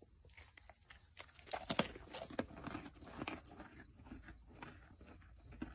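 A white-tailed deer biting into and chewing a cookie: a run of irregular crunches, loudest about a second and a half in.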